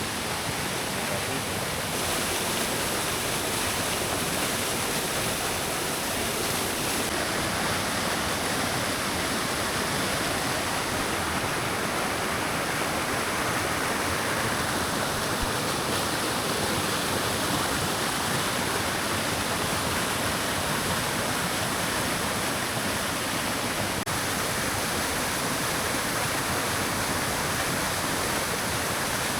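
Steady rush of the Thiririka River's rushing water, with no let-up.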